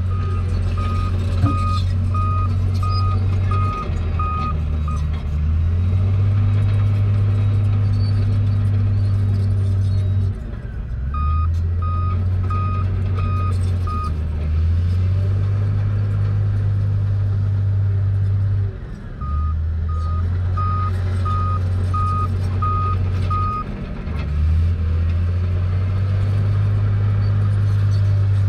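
Diesel engines of a dump truck and a small Komatsu bulldozer running, the engine note shifting in load and pitch every few seconds. A reversing alarm beeps in three runs of five to seven beeps, a little under two a second.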